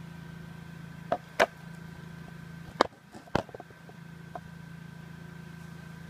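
A steady low hum with four sharp knocks, the loudest about a second and a half and about three seconds in, followed by a few faint taps.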